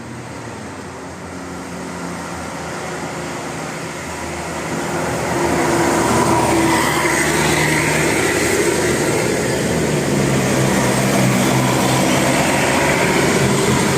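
A heavy road vehicle, a bus or truck, passing close by: engine and tyre noise that builds about five seconds in and stays loud, with a steady low engine hum underneath.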